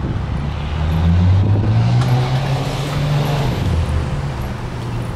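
A passing vehicle: a low engine hum with a rushing noise that swells to its loudest one to three seconds in, then fades.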